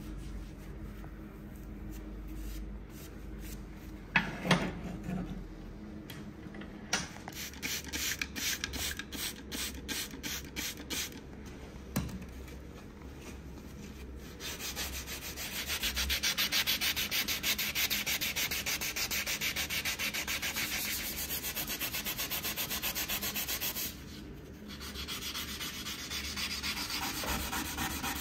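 Sandpaper rubbed by hand back and forth along a forged steel knife blade made from twisted wire. It starts as short strokes at about three or four a second, then becomes a faster, louder, continuous run of strokes, pauses briefly, and resumes more quietly near the end. A single knock sounds about four seconds in.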